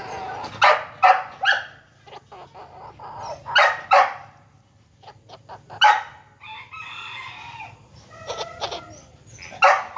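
Bantam chickens clucking and squawking in short, loud calls that come in scattered groups, with a few longer, more tuneful calls near the end.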